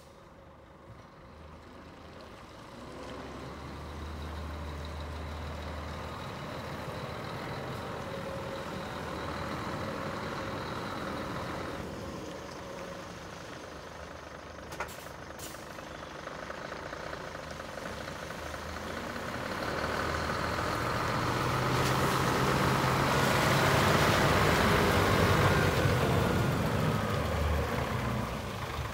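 Scania P380 crane truck's diesel engine running as the truck drives slowly toward and past, swelling to its loudest as it comes close near the end.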